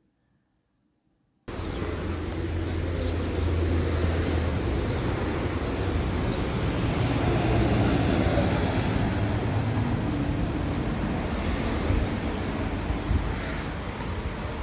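Near silence, then about a second and a half in a steady rush of street traffic begins, with a low engine hum under it for the first few seconds.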